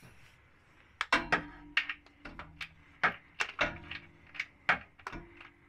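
Torque wrench and socket clinking and knocking against metal as they are worked in toward a transmission fill plug: about a dozen sharp, separate metal taps over a few seconds.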